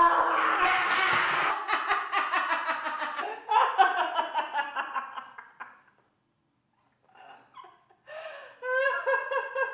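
A woman laughing hard in loud, rapid bursts that fade out about six seconds in, then breaking into laughter again near the end.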